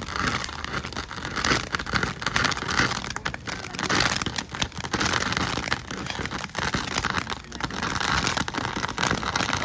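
Firework fountain burning in the front funnel of a Titanic model ship, spewing sparks: a continuous hiss thick with sharp crackles, swelling and easing.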